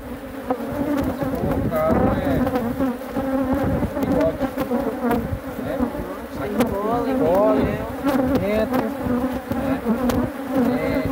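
Honeybees from an opened, defensive colony buzzing in a steady drone, with single bees flying close past the microphone in rising and falling whines. A few light clicks come from the hive frames and tool.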